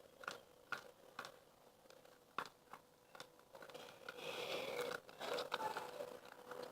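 Homemade slime of school glue and liquid soap being mixed and worked, giving faint scattered sticky clicks and crackling pops.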